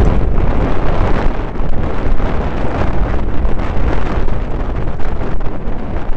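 Loud wind buffeting the microphone of a camera riding on a mountain bike, mixed with the tyres rolling on gravel and a steady run of small rattles and knocks from the rough track.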